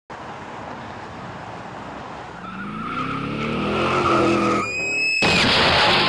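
A car engine revving up, rising in pitch, over a tyre squeal, then cut off by a sudden loud crash about five seconds in.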